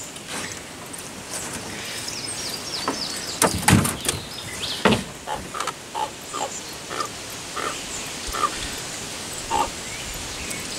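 Knocks and thumps of a fish and gear being handled in a canoe, the loudest about three and a half to four seconds in and again near five seconds, over an outdoor background with birds chirping.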